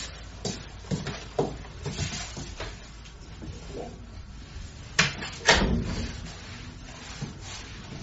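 Light knocks and footsteps in a room, then two sharp bangs about half a second apart, about five seconds in, from a door being shut.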